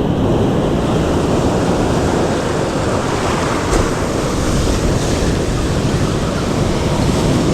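Steady rush of surf with wind buffeting the microphone.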